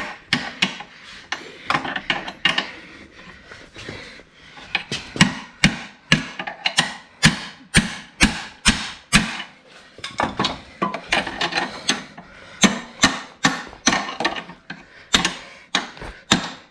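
Hammer blows on a spanner held against a bent metal motorbike luggage rack, driving it back into shape. The blows come about two a second, each with a short metallic ring, with a lull around three to five seconds in.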